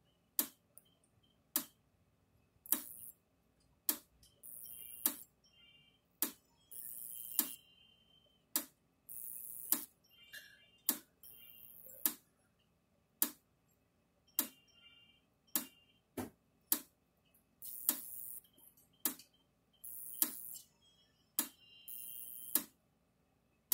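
Old Sears weed burner electric fencer pulsing about once every 1.2 seconds. Each pulse is a sharp click, often followed by a hissing arc that lasts up to a second: its long-duration high-voltage AC shock jumping the gap between two screwdrivers on the hot and ground terminals.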